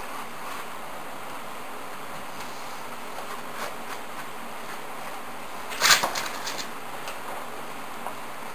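Hands handling cork roadbed strips and tools on a model railroad layout over a steady background hiss, with light scattered clicks. About six seconds in comes a brief loud burst of handling noise, followed by a few quick clicks.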